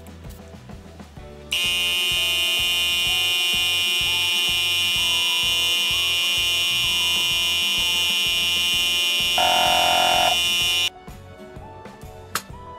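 A 12V mini tyre compressor runs with a steady, loud buzz. It switches on about a second and a half in and cuts off near eleven seconds, while re-inflating a car tyre that was let down below 2 bar. Background music with a steady beat plays throughout.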